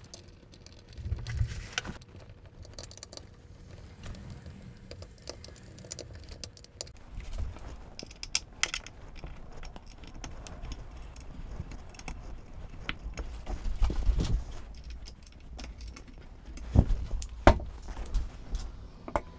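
Metal clinks and rattles of a swivel-arm TV wall mount being handled while its locking screws are refitted. A few dull knocks come near the end as the arm folds and the TV is pushed flat against the wall.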